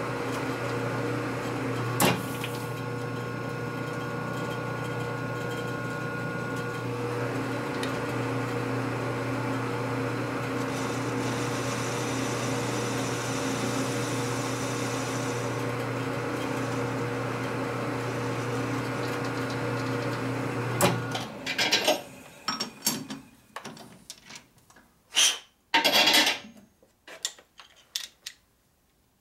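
A metal lathe motor running with a steady hum while a socket wall is trimmed, with one sharp click about two seconds in. The lathe shuts off about 21 seconds in, followed by scattered knocks and clanks of metal parts and tools being handled.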